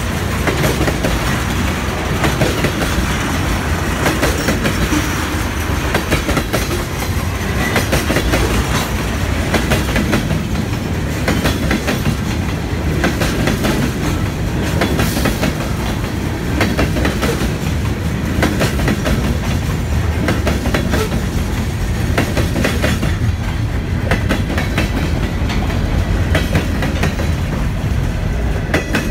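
Buffalo & Pittsburgh Railroad freight cars (tank cars, then gondolas and a covered hopper) rolling past: a steady rumble of steel wheels on rail with a continuous run of clicks and clacks as the wheels cross the rail joints.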